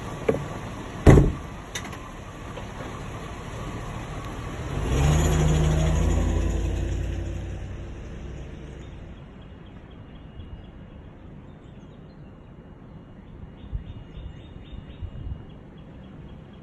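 A few sharp clicks, the middle one loudest, then about five seconds in a low engine-like hum comes on suddenly, holds for a couple of seconds and dies away gradually; faint ticking near the end.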